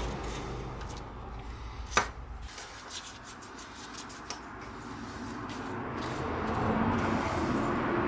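Small parts and tools being handled, with one sharp click about two seconds in, then a few fainter clicks and knocks.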